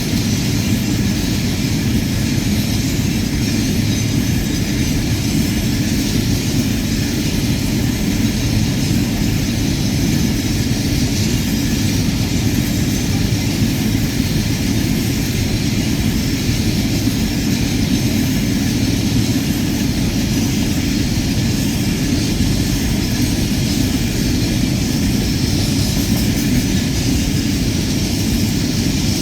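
Rail inspection car running along the track: a steady low rumble of engine and wheels on the rails, even throughout with no change in speed.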